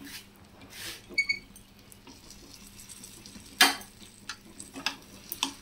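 A light metal clink about a second in, then the hinged lid of a stovetop sandwich toaster is clapped shut with a loud metal clack a little past halfway, followed by a few smaller clicks as the closed toaster is handled.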